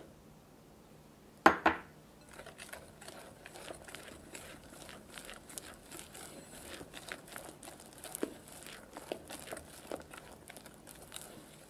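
Wire whisk beating flour into egg yolks and sugar in a glass bowl: a fast, uneven run of clicking, scraping strokes as the pastry-cream base is mixed. Two sharp knocks come about a second and a half in, just before the whisking starts.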